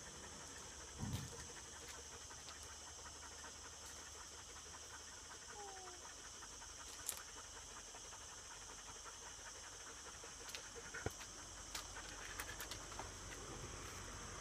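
A small dog panting steadily, with a soft low thump about a second in and a few faint clicks near the end.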